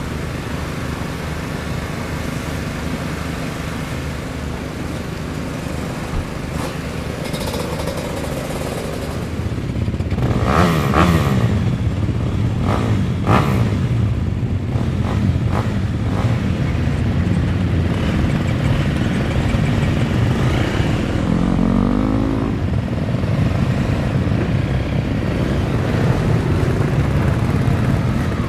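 Motocross bikes running on the track: a steady engine drone that grows louder about ten seconds in, with engines revving up and down as bikes come past, once near the middle and again about two-thirds of the way through, and a few sharp clatters in between.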